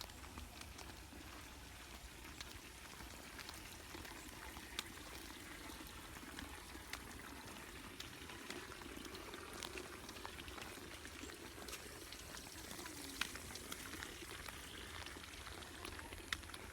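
Water running and trickling steadily, with a low rumble underneath and scattered sharp clicks.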